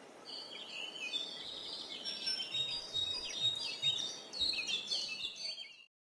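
Several birds chirping and singing in short, overlapping high calls, which cut off suddenly near the end.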